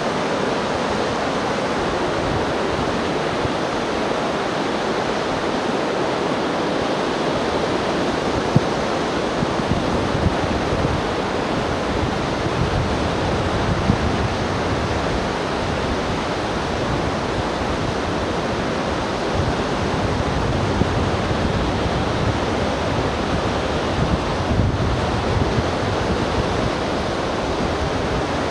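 Surf breaking along a sandy beach, a steady wash of noise, with wind gusting on the microphone.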